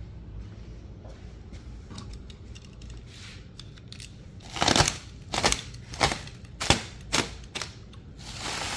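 A low steady hum, then about six sharp knocks in quick succession over some three seconds, the first the loudest.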